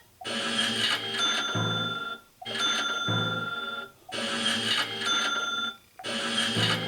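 A short snippet of TV soundtrack with bell-like ringing tones, stuttering on a loop and repeating about every second and three quarters with brief dropouts between, as from a DVR skipping or stalling in playback.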